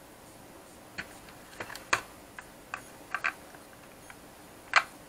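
Scattered light clicks and taps, about eight of them starting about a second in, from handling the opened plastic shell of a drone remote controller and the metal antenna connector being fitted into it.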